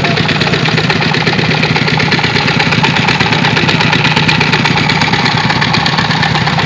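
Water pump machine running steadily with a constant low hum and rapid even pulsing, drawing river water to push it uphill.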